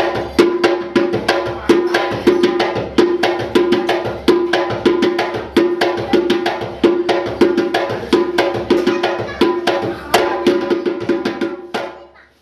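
Percussion music: fast, dense drum and hand-percussion strikes over a repeating pitched note, fading out near the end.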